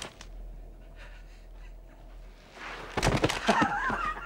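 A quiet low hum, then about two and a half seconds in, short broken bursts of a person's voice.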